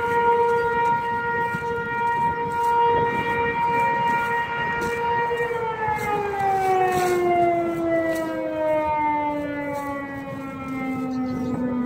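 ASC T-135 outdoor warning siren sounding its steady tone, then winding down: about five and a half seconds in, the pitch starts falling steadily and keeps sliding lower as the siren's rotor coasts down at the end of the steady test.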